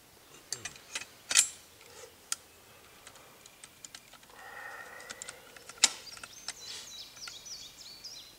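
Metal clicks and knocks of a Derya Lion Trap semi-automatic shotgun's barrel being worked back onto its magazine tube and receiver, with two sharper clacks, one about a second and a half in and one near six seconds.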